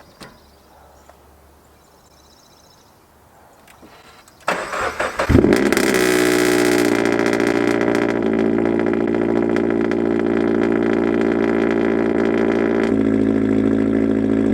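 Subaru BRZ's 2.0-litre flat-four cold-started through a catless front pipe: the starter cranks briefly about four and a half seconds in, the engine catches with a quick rev flare, then settles into a loud, steady high cold idle whose note shifts slightly near the end.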